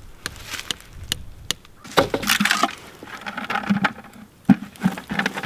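Light hammer taps on a nail in a maple trunk, then a plastic sap bucket scraping and knocking against the tree as it is hung on the spile, with one sharp knock about four and a half seconds in.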